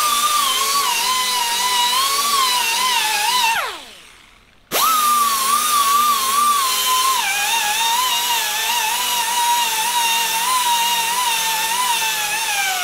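Die grinder with a small abrasive disc whining at high speed as it dresses the end of a cast bronze capstan's hub, its pitch wavering slightly as it bears on the metal. It winds down after a few seconds, starts again with a sharp rise about a second later, and runs until it winds down once more at the end.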